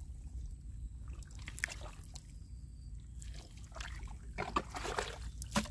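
Wet mud squelching and sloshing as a hand digs deep into a waterlogged mantis shrimp burrow in a mudflat. Scattered wet clicks and splashes, busier in the last second or so.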